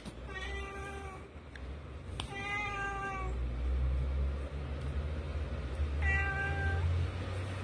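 Domestic cat meowing three times, each call drawn out for under a second at a steady pitch, as it is teased by a hand in play fighting. A low steady rumble sits underneath from about halfway on.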